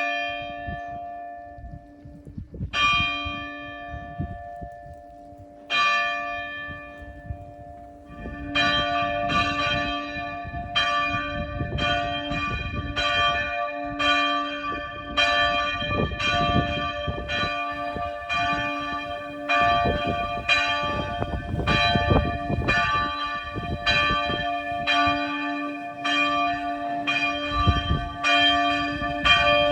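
Church bell tolling: three single strokes about three seconds apart, each left to ring out, then steady continuous ringing of a little more than one stroke a second, with a low hum tone sustained beneath the strokes.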